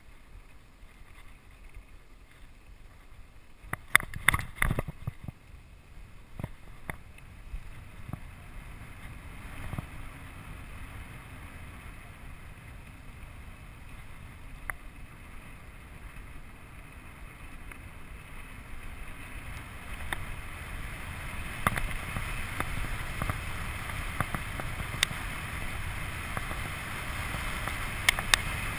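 Rigid singlespeed 29er mountain bike rolling fast downhill over a bumpy dirt track, with wind rushing on the microphone that grows louder as the bike picks up speed. Sharp rattles and knocks from the unsuspended bike over bumps, a cluster about four seconds in and single ones later.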